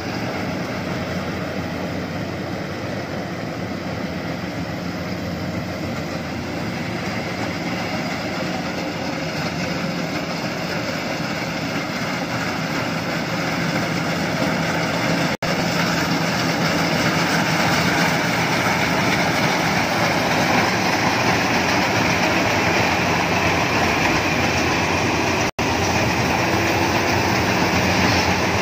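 Iseki HC80P rice combine harvester running steadily as it harvests, its engine and threshing machinery making a continuous mechanical din that grows louder in the second half.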